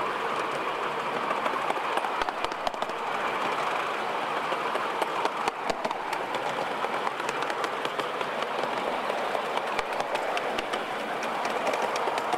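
A miniature-railway train hauled by a small steam locomotive running along the track: a steady rushing running noise with scattered sharp clicks of the wheels over rail joints and points.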